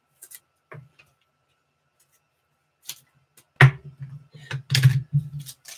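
Trading cards in clear plastic holders being handled: a few faint clicks, then a quick run of sharper clicks and light knocks in the last two seconds.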